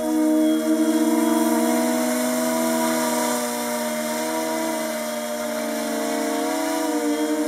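Propeller motor of a radio-controlled model airplane droning steadily in flight overhead, its pitch wavering slightly as the plane turns and passes, with a brief rise and fall in pitch near the end.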